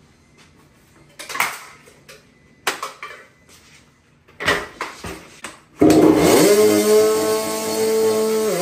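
A few short clanks and rattles, then the 2001 Honda CR80's 80cc two-stroke single fires about six seconds in, rises briefly in pitch and settles into a steady idle.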